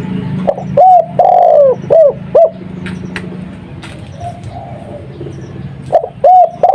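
Spotted dove (tekukur) cooing a 'kuk 2' phrase: two short coos, one long drawn-out coo, then two short coos. The same phrase starts again near the end.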